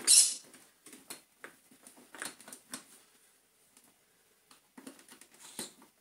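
Plastic clicks and scrapes from the shell of a Miele Blizzard CX1 vacuum cleaner being handled and pried at with a screwdriver, opening with one loud scraping rush and followed by scattered small clicks.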